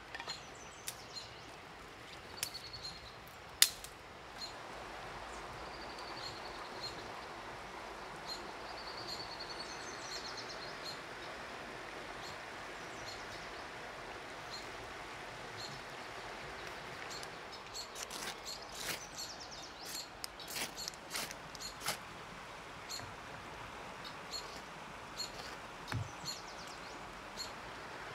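Dry sticks snapping and clicking as they are broken and stacked into a fire lay, with the loudest snaps in the first few seconds and a cluster of clicks past the middle. Birds chirp now and then over a steady outdoor hiss.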